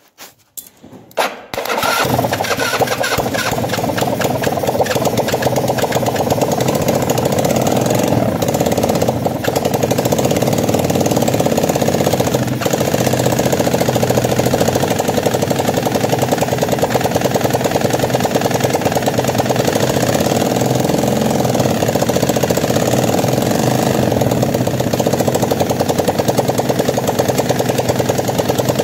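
Freshly rebuilt motorcycle engine, with new piston rings, being started: a few short cranking clicks, then it catches about two seconds in and runs steadily and loudly. It runs with the exhaust not yet fitted.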